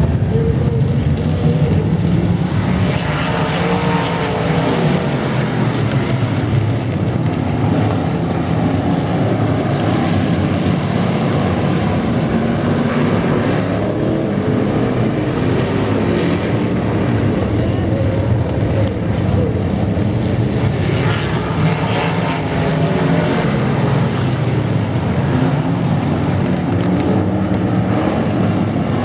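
Dirt-track race car engines running hard at racing speed, the pitch rising and falling as the cars go through the throttle.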